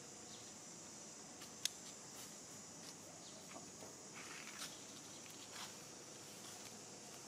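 Faint outdoor ambience with a steady high hiss, scattered small clicks and rustles of branches as a macaque climbs through a tree, and one sharp click about a second and a half in.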